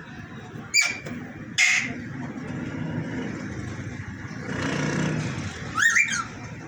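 Pet parrot giving short, sharp squawks, three of them, the last a quick two-part call that slides in pitch, over a steady low rumble of traffic or machinery.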